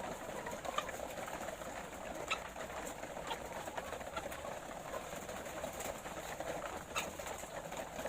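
A flock of caged laying hens clucking and calling together in a steady, dense murmur, with a few sharp clicks.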